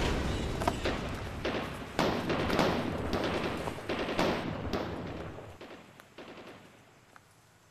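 Gunfire sound effects: irregular single shots over the fading rumble of an explosion. The shots thin out and die away to near silence near the end.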